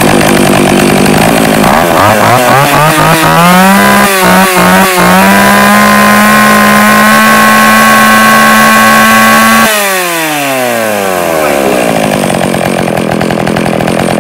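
36cc Makita two-stroke chainsaw being run: revved up with a few throttle blips, held at high revs for several seconds, then released about ten seconds in and dropping back to a steady idle. The engine is firing on every stroke and pulls strongly.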